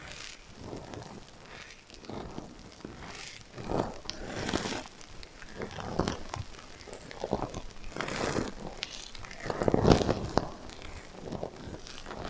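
Sequins on a heart-shaped sequin pillow brushed by hand, an irregular run of scratchy, crinkly swishes played with an echo effect. The loudest sweep comes about ten seconds in.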